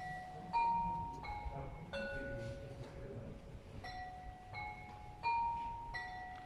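Carillon of Meissen porcelain bells struck by plastic hammers, playing a slow folk melody with a soft, ringing tone. The notes come about one every 0.7 seconds, with a pause of a little over a second about midway, each note ringing on as the next is struck.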